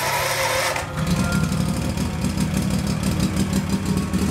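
Scag 52 hydro mower's engine turned over by its electric starter, catching about a second in and then running steadily. The start shows the newly replaced wiring harness works.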